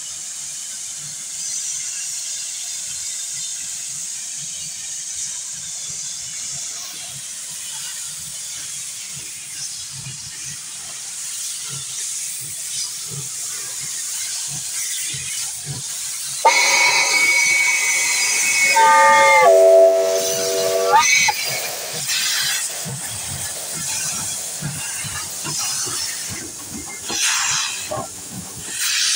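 Soviet L-class steam locomotive L-3485 hissing steadily as it vents steam from its cylinders. A bit past halfway it sounds a loud steam whistle of several tones at once, which steps down in pitch before it stops. Near the end louder bursts of steam come as it pulls away.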